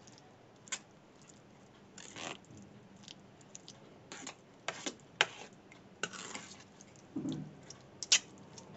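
Steel spoon stirring mashed potato, tomato and eggplant bharta in a stainless steel bowl: soft squelches of the mash with irregular scrapes and clinks of the spoon against the bowl.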